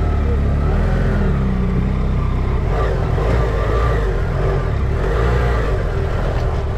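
Engine running steadily with a low drone, its pitch rising and falling a little as the revs change.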